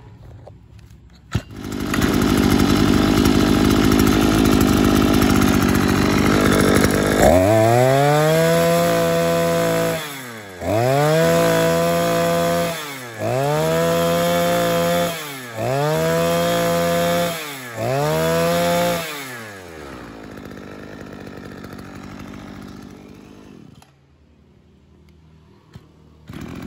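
Maruyama MB2620 26cc two-stroke brush cutter engine being test-started. It catches about two seconds in and runs a few seconds, is then revved up to high speed five times with short drops back between, idles, and cuts out near the end.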